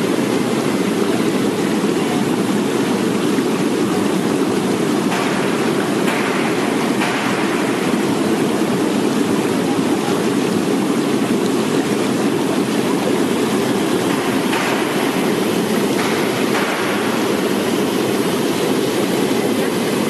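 Water churning and bubbling hard in the stainless steel tank of a QX-22 bubble washing machine as air is blown up through it to wash jujubes: a steady, even rushing noise.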